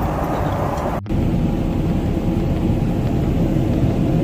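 Steady cabin noise of a Boeing 777-300ER in flight: rushing air and the drone of its GE90 engines. It breaks off for an instant about a second in, then resumes a little louder and deeper.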